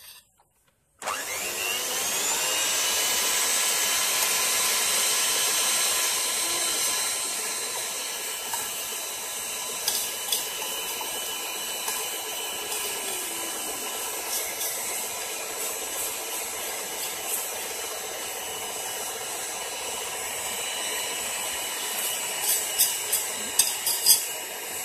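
Electric stand mixer beating cake batter: the motor starts about a second in, whines up to speed, and then runs steadily. A few sharp clicks near the end.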